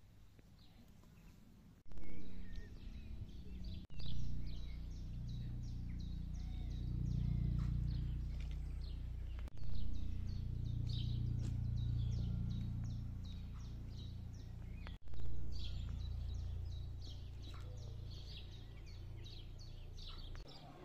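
Songbirds chirping in quick repeated notes throughout, over a louder low steady rumble that cuts in abruptly about two seconds in, jumps again at several points and fades near the end.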